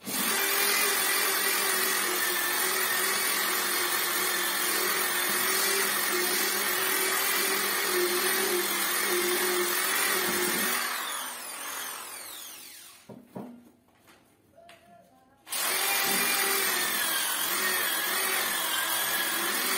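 Electric sander working on a wooden door: it starts abruptly and runs steadily with a whine for about ten seconds, then winds down with falling pitch. After a short pause with a few light knocks it starts up again and runs on.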